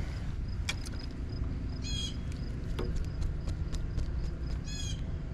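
A bird calls twice, two short, harsh calls about three seconds apart, over a steady low rumble.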